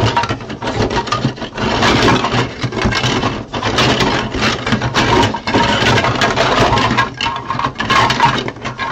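Hard 3D-printed plastic parts clattering, knocking and scraping against each other and the cardboard as a hand rummages through a box full of them.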